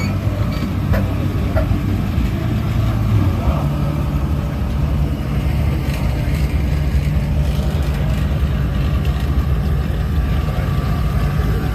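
Car engine running with a steady low rumble, its pitch stepping up slightly about three and a half seconds in.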